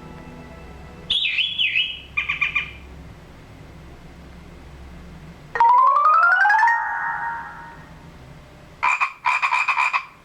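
A series of short electronic alert tones, like phone notification sounds being tried one after another: a warbling beep about a second in, a rising chirp that settles into a held tone in the middle, and a rapid pulsing tone near the end.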